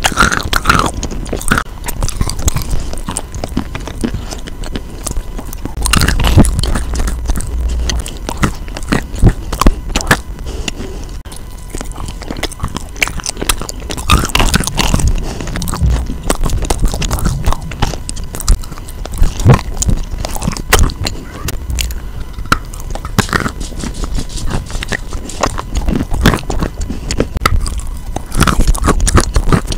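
Close-miked biting and chewing of a hard, clay-crusted chunk of chalk and clay: a steady run of sharp crunches and gritty scraping in the mouth, with louder clusters of bites every few seconds.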